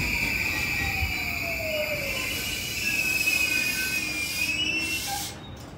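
JR East E235-series Yamanote Line electric train pulling into the platform and slowing. A high, steady wheel squeal wavers slightly in pitch, while a whine falls in pitch over the first two seconds as the train brakes. The sound drops away about five seconds in.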